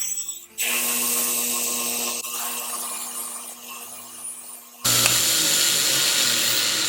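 Small power tool running against metal, cleaning a lamp part ready for soldering. A steady run starts about half a second in and fades, then a louder pass starts suddenly about five seconds in.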